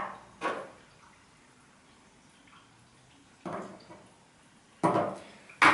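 A few short clicks and knocks as small metal flashlight parts and a battery are picked up and set down on a wooden table, with a louder pair near the end.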